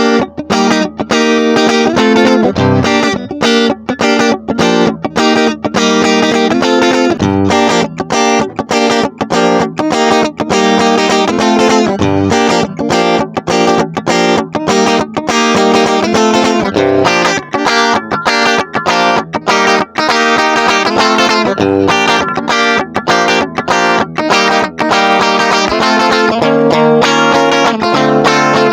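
Music with an electric guitar playing over a bass line.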